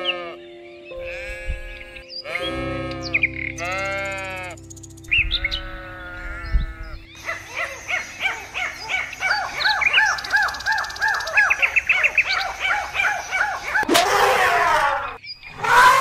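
Bleating calls, about five in the first six seconds, over background music with held notes. From about seven seconds, birds chirp rapidly, several short calls a second, and a harsher, noisier call sounds near the end.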